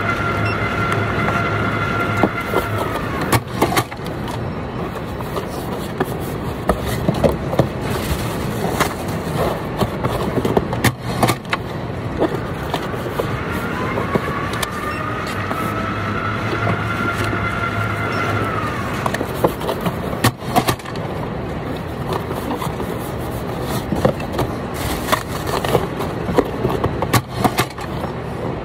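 Warehouse packing-station noise: a steady machinery din with scattered knocks, scrapes and rustles of cardboard boxes being folded and packed by hand. Twice a machine motor whines with a low hum for several seconds, rising in pitch and then holding steady before it stops.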